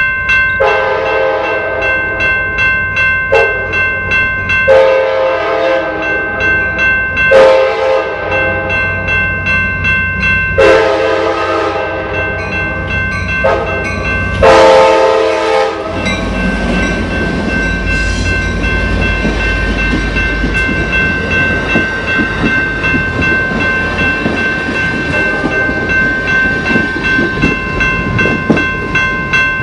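F59PHI passenger diesel locomotive sounding its horn in a run of long and short blasts as it approaches the crossing, then the locomotive and its train rumbling past on the rails. Grade-crossing warning bells ring steadily underneath.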